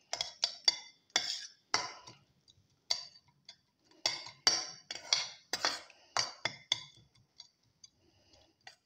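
A perforated steel skimmer clinking and scraping against a steel pan while mashing boiled grapes into a puree. The metal clinks come irregularly, about two a second, and thin to a few faint ticks near the end.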